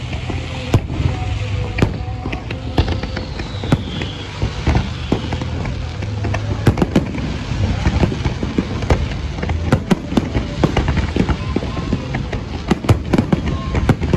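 Fireworks display: a rapid string of launches and bursting shells, sharp bangs and crackles coming thick and fast and growing denser toward the end, over a steady low rumble.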